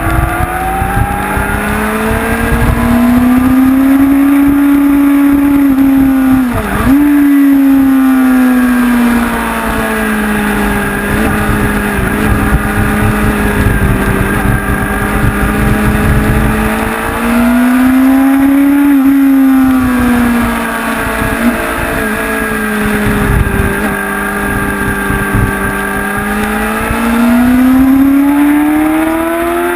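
Honda CBR sportbike's inline-four engine heard onboard at speed, its pitch climbing under acceleration and falling off under braking, with a sharp drop about seven seconds in and two more swells later on.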